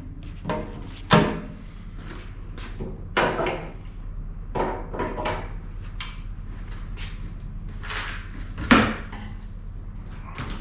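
A series of irregular metal knocks and clanks, some with a short ring, the loudest near the end: knockout slugs being worked out of a steel electrical service box with channel-lock pliers.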